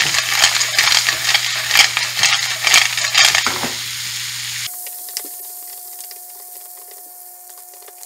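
Spotted babylon snails in their shells sizzling as they are tossed in a hot frying pan, the shells clicking and rattling against the pan. About halfway through the sound drops suddenly to a quieter steady sizzle with a faint steady tone.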